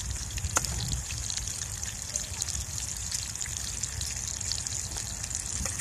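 Meat sizzling and crackling as it fries in a pan on a portable gas stove, a steady hiss with many small pops. A spatula knocks once against the pan about half a second in, over a low rumble.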